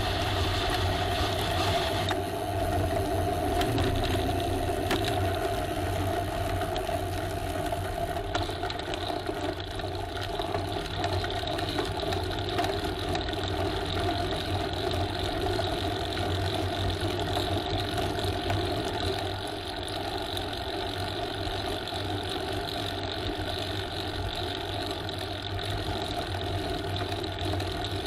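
A steady motor hum at an even pitch, with a low rumble beneath it.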